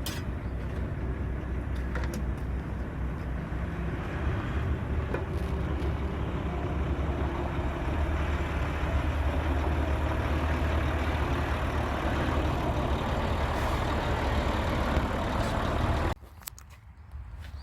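Large dump truck's engine running steadily with a deep rumble and a few light clicks, cutting off suddenly about sixteen seconds in.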